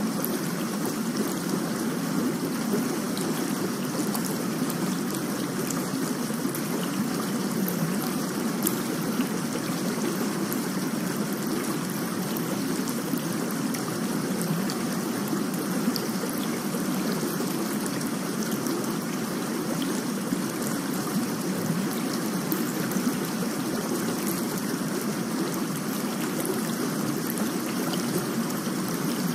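Steady rainfall: an even hiss of water with many small ticks of falling drops.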